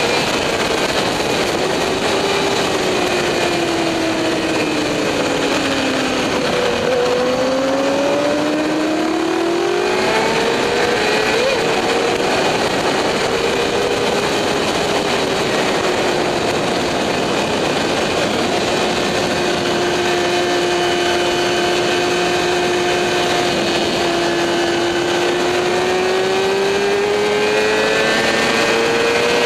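Motorcycle engine heard on board at track speed over heavy wind rush. The revs fall for several seconds under braking, climb again, hold steady for a long stretch, then climb once more near the end.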